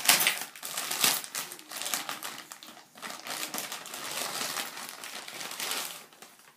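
Grey plastic mailing bag crinkling and rustling as it is pulled open and a paper-wrapped item drawn out, loudest in the first second or so and dying away at about six seconds.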